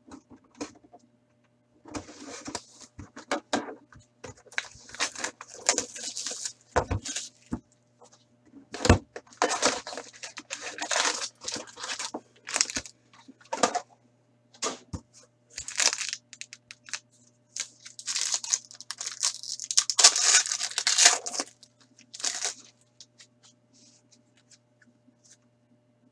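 Plastic shrink wrap and foil card-pack wrappers crinkling and tearing as a box of hockey cards is slit open and a pack ripped apart, in irregular rustling bursts with sharp clicks. The rustling thins out near the end. A faint steady hum runs underneath.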